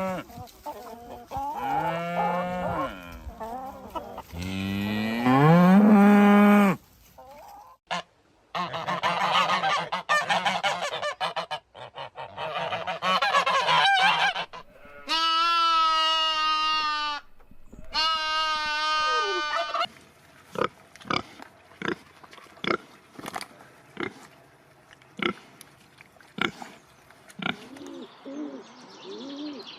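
A run of farm animal calls, one kind after another: loud honking and bellowing calls in the first part, then a stretch of sharp, separate clicks and knocks.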